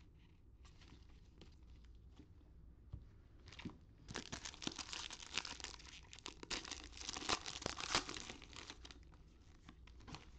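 Foil wrapper of a Topps baseball-card retail pack being torn open and crinkled: a dense crackling rustle starting about four seconds in and lasting about five seconds. Before it, faint clicks of cards being handled.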